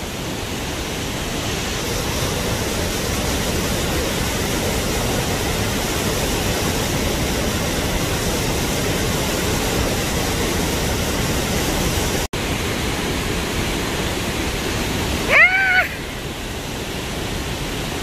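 Waterfall rushing: a steady, even wash of falling water. About fifteen seconds in, a brief cry rises and falls over it, and the sound drops out for an instant about twelve seconds in.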